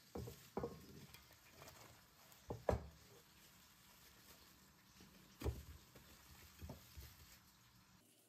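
Faint handling noises of raw chicken pieces and cling film on a wooden board: a handful of irregular soft thumps and rustles, the loudest nearly three seconds in.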